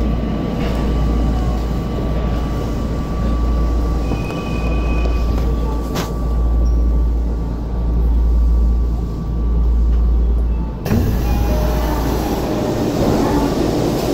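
Tokyo Metro 02 series train with permanent-magnet motors braking to a stop in a station: a steady low rumble with a thin motor whine that ends about six seconds in, with a sharp click. About eleven seconds in the sound changes abruptly as the doors open onto the platform.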